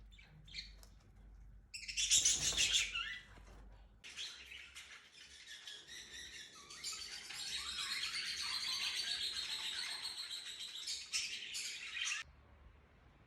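Birds chirping and twittering in a dense, high-pitched chatter: a loud burst about two seconds in, then steady twittering that cuts off suddenly near the end.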